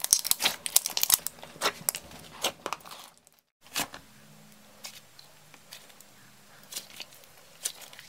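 Clear slime packed with white cubes squeezed in the hands, giving a quick run of loud crackles and crunches. After a short silent break near the middle, thick pink slime is pressed and stretched, with sparse, softer pops and clicks.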